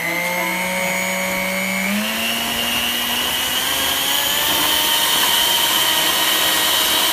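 Electric mixer running at full power, its twin beaters working powdered sugar, shortening and melted butter into frosting. A loud, steady motor whine steps up in pitch about two seconds in, then cuts off suddenly at the end.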